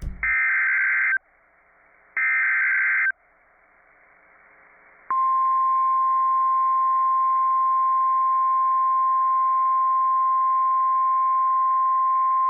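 NOAA Weather Radio Emergency Alert System alert. Two bursts of SAME digital header data, each about a second long, are followed about five seconds in by the steady 1050 Hz warning alarm tone, which holds unbroken. Together they announce a severe thunderstorm warning.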